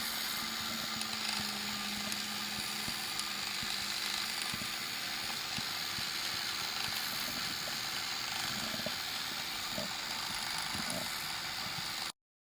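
Wood lathe running steadily with a hiss of work on the spinning plum-wood bowl. A low hum fades about two seconds in, and the sound cuts off suddenly near the end.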